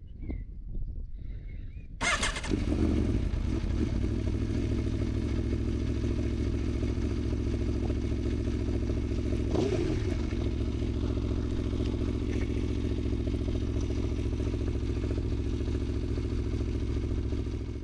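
Aprilia Tuono V4 Factory's V4 engine starting: a low cranking rumble, then it fires about two seconds in with a brief flare of revs and settles into a steady idle. A short knock near the middle.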